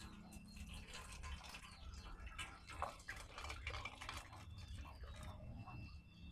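Bean cooking water trickling and dripping faintly through a perforated metal strainer into a metal bowl as boiled black beans are poured in.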